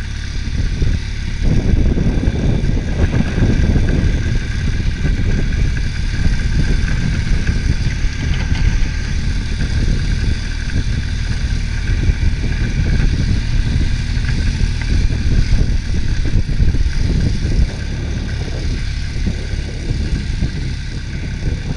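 ATV engine running steadily while riding.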